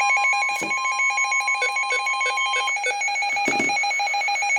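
NOAA Weather Radio's 1050 Hz warning alert tone, held steady and stopping a little past halfway through. Under it, a weather radio receiver's rapidly pulsing two-pitch alert beep keeps going until the broadcast message starts. Together they signal that a warning, here a high wind warning, is being issued.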